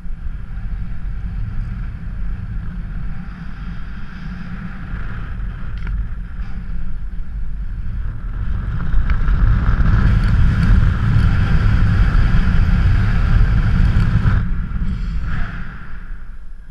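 Wind rushing over an action camera's microphone on a paraglider in acrobatic flight: a steady low rumble that grows louder and harsher about nine seconds in as the glider rolls over, and eases off again about fourteen seconds in.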